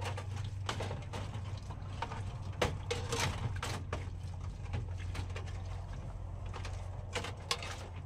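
Dishes and cutlery clinking and knocking together as they are washed by hand, in irregular clatters, over a steady low hum.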